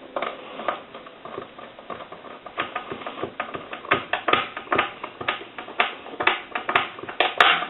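Hands handling a plastic desk telephone: a run of irregular small clicks and knocks, some sharper and louder about four seconds in and near the end.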